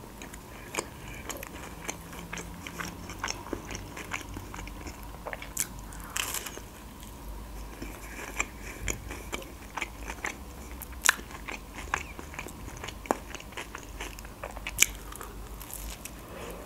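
A person chewing and biting a crisp toasted hot open sandwich, with many short crunches and mouth clicks scattered throughout.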